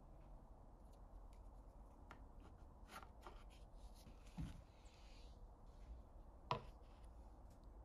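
Faint pencil scratching as a corner line is traced around a container onto plywood, with a few light ticks and taps. A soft thump comes a little past halfway, and a sharper knock near the end.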